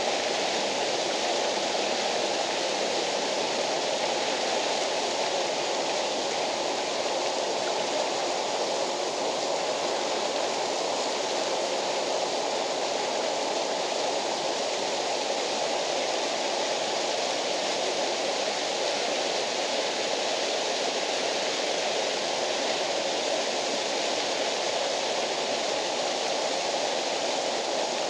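Waterfall rushing in a steady, unbroken wash of falling water.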